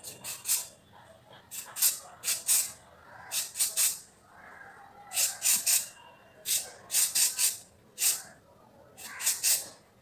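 Aerosol hair-styling spray can sprayed in short hissing spritzes, in quick clusters of two to four, about twenty in all.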